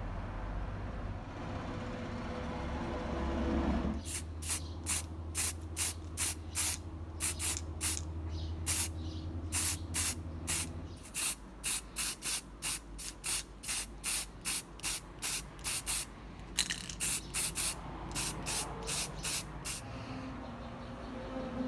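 A compressed-air paint sprayer hissing in dozens of short bursts, about two a second, from about four seconds in until near the end. It is spraying a fine mist of paint. Before the spraying starts there is a steady low hum.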